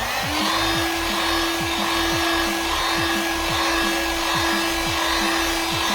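Heat gun switching on at the start and blowing steadily, a loud hissing rush with a steady hum, heating the phone to soften its adhesive for opening. Electronic music with a regular kick drum, about two beats a second, plays underneath.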